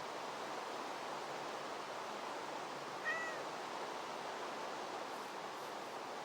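Steady hiss of falling rain, with one short arched animal call, like a cat's meow, about three seconds in.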